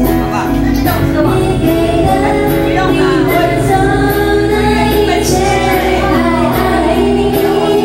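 Woman singing karaoke into a microphone, her voice amplified over a pop backing track with a steady beat.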